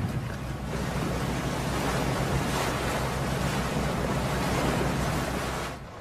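Sea waves and wind, a steady rush of surf that stops abruptly near the end.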